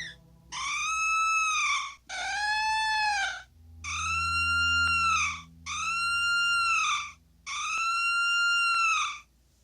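Korg MS-20 mini analog synthesizer sounding five short, bright tones, each arching up and falling back in pitch: a synthesized imitation of a woman's scream being shaped. The second tone is pitched lower than the rest.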